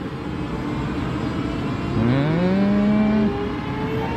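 Taiwan Railways EMU500 electric commuter train pulling away from the platform: a steady rumble, then about two seconds in a whine in several tones rises from low pitch and keeps climbing as the train gathers speed.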